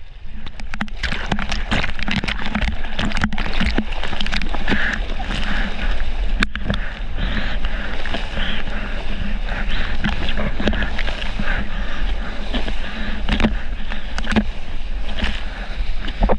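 Water rushing and spraying past a surfboard riding a wave, heard on a fisheye action camera held just above the surface. A steady loud rush, starting sharply about half a second in, with many sharp splats of spray hitting the camera housing.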